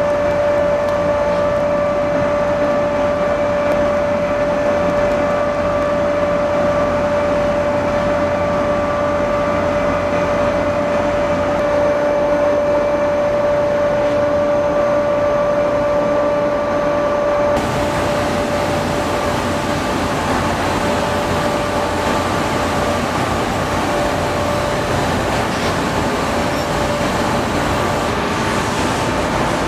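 Steady ship machinery hum with a constant high whine, from an aircraft carrier alongside the pier. Partway through it changes abruptly to a hissier mix as the shot changes.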